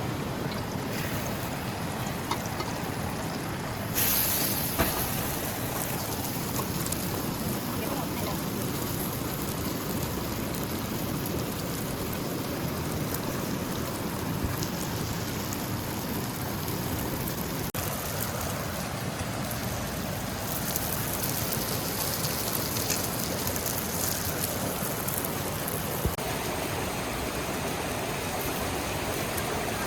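Steady rain falling, an even hiss throughout, with a short louder rush about four seconds in and a few faint knocks.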